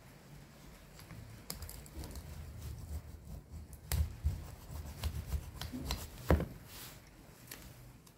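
Irregular small clicks, taps and knocks of hands turning and working a small metal heater control valve at a workbench, with the loudest knocks about four seconds in and again about six seconds in.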